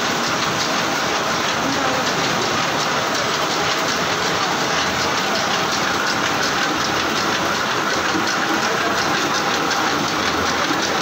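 Multiend silk reeling machine running: a steady mechanical clatter of meshing gears and turning reels, with many fine rapid ticks.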